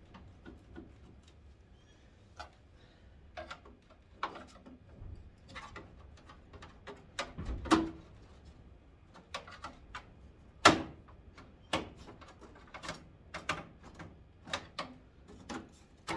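Irregular clicks and knocks from hands working at a 1991 Ford Ranger's headlight assembly, trying to free old parts that are stuck fast. Two knocks stand out as louder, one about halfway through and another a few seconds later.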